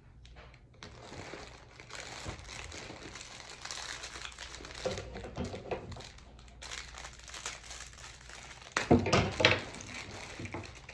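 Plastic packaging crinkling and rustling as a clear plastic bag and plastic shipping mailers are handled and rummaged through, loudest about nine seconds in.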